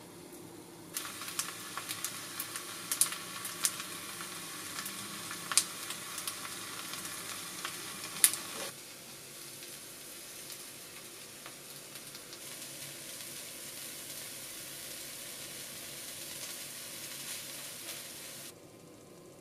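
Stone-pot-style bibimbap sizzling in a hot cast-iron skillet over a gas flame, with sharp crackles and pops for the first several seconds. It then settles to a softer, steady sizzle that cuts off suddenly near the end.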